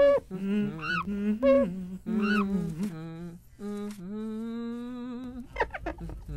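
A voice humming a wordless tune, sliding between notes and holding one long note near the end.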